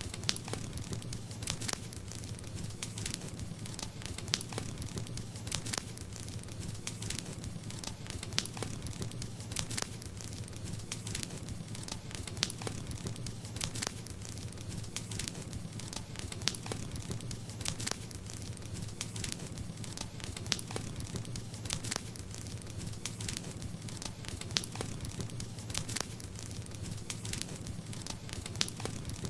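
Campfire crackling, with a steady run of small sharp pops and now and then a louder snap, over a constant low rumble of the flames.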